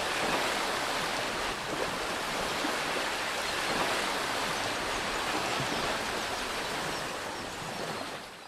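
Steady rushing noise of sea surf washing over rocks, fading out at the very end.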